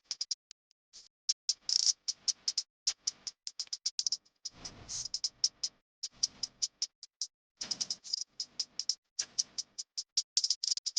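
Rapid, irregular sharp clicks and light metallic taps, with two short stretches of scraping about four and a half and eight seconds in: hand tools at work on the pump motor's parts.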